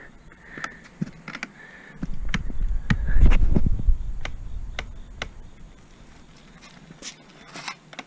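Handling noise from an action camera being moved by hand: a low rumble about two seconds in, lasting about two seconds, with a run of sharp clicks and knocks about every half second, then a few faint scrapes near the end.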